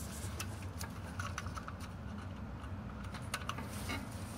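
Scattered light clicks and rattles of ignition wires and their boots being handled and fitted onto a distributor cap, over a low steady rumble.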